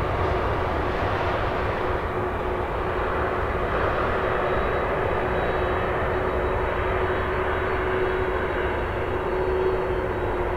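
Jet airliner engines running steadily at low power: an even roar with a steady hum-like tone, with no change in level.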